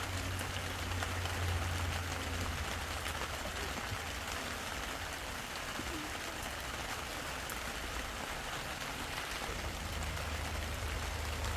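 Steady rain falling, an even hiss of drops throughout, with a low rumble under it in the first few seconds and again near the end.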